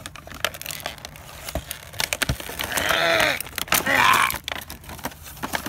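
Plastic bags and cardboard packaging of K'nex pieces crinkling and clicking as they are handled. About halfway through, a man makes two drawn-out wordless vocal sounds, each rising then falling in pitch.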